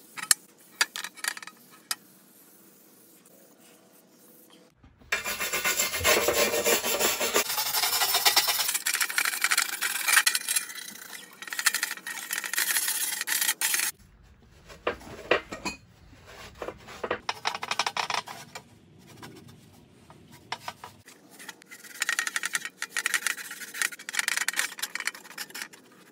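A wire brush scrubbing the rust-pitted steel plate of an M1916 Infanterieschild wet with Ballistol, then a cloth rubbing it down. It comes in spells: a few sharp clicks at the start, a long scratchy scrubbing stretch from about five seconds in, and shorter rubbing spells later.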